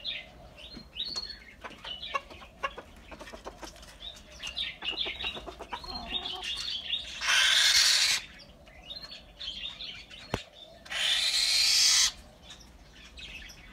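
A young bird of prey flapping its wings in two bursts of about a second each, one about seven seconds in and one about eleven seconds in. Small birds chirp throughout.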